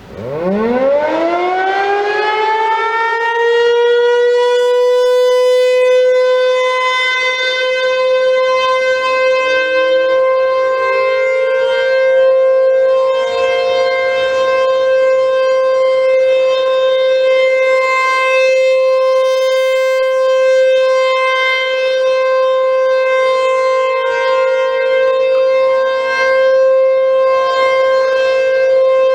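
ACA/ASC T-135 outdoor tornado siren on test, winding up from a standstill, its pitch climbing over the first few seconds to a single steady tone that it then holds.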